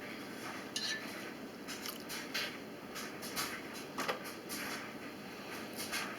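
Scattered light clinks and knocks of a utensil against a cooking pot, as cooked chicken bones are fished out of the broth.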